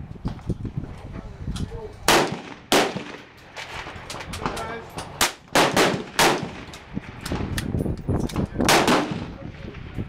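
Gunshots on a shooting range: about six loud reports, each with a ringing tail, among many fainter shots from other shooters.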